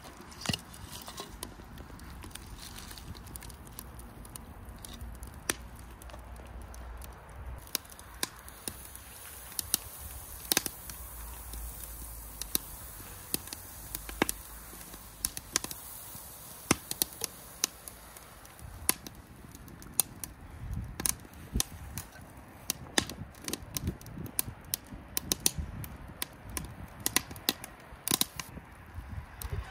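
A kitchen knife cutting on a cutting board, sharp irregular knocks that come faster in the second half.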